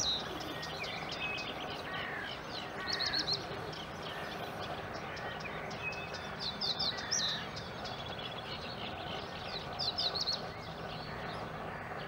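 Eurasian coot chicks peeping: short runs of three or four high, thin notes, repeated every few seconds over steady background noise.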